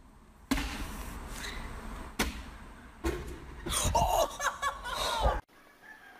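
A sharp smack about two seconds in, followed by excited voices and laughter that stop abruptly.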